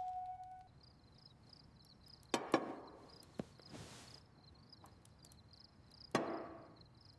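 A few sharp knocks, two close together about two and a half seconds in and one more about six seconds in, each with a short ringing tail, plus a small click and a couple of soft whooshes, over a faint high chirping in the background. A xylophone-like music note ends right at the start.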